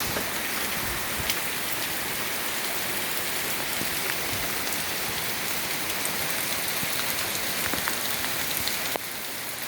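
Heavy downpour: rain falling steadily and hard, with separate drops tapping close by. It drops slightly in level about nine seconds in.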